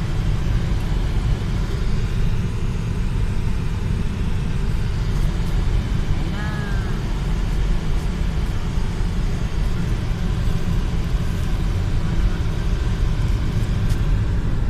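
Steady low rumble of a car's road and engine noise, heard from inside the cabin while driving. About six seconds in, a brief pitched sound rises and falls over it.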